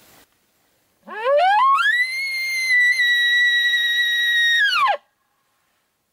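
An elk bugle: one long call that sweeps steeply up from a low note into a high whistle, holds there for about three seconds, then drops off sharply.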